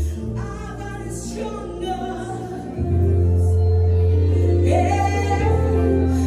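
A church worship team sings live gospel praise music over steadily held bass notes. The music gets louder about three seconds in.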